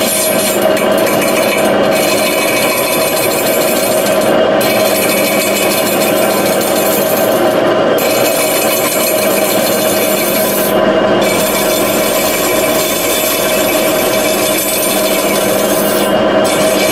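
An old lathe turns an aluminium alloy wheel while a radius turning tool skims its face: a steady machining hum under a high scraping hiss. The scraping of the cut drops out briefly about five times, a few seconds apart.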